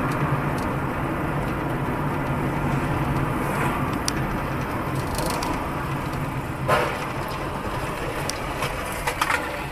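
Steady engine and tyre noise of a car driving and slowing, heard from inside the cabin through a dash camera. About two-thirds of the way in comes one short sharp bang, and a few quick clicks follow near the end.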